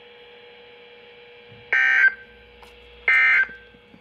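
NOAA Weather Radio SAME digital data bursts: two short, harsh bursts of tone about a second and a half apart, over faint receiver hiss and a steady low tone. Their shortness and spacing fit the end-of-message (EOM) code that closes the Required Weekly Test broadcast.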